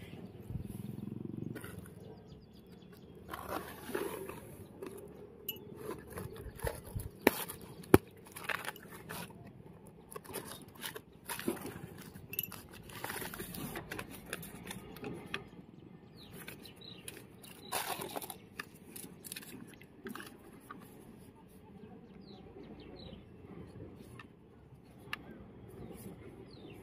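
Cardboard and paper packaging being handled and opened: irregular rustling, crinkling and scraping, with two sharp snaps about seven and eight seconds in.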